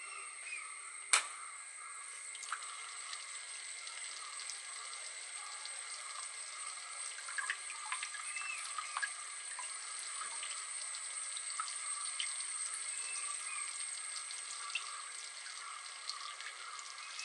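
Thin jets from a small DIY fountain driven by a toy water pump, splashing and trickling back into a tub of water: a steady light patter with scattered drips, under a faint steady high whine. A single sharp click about a second in.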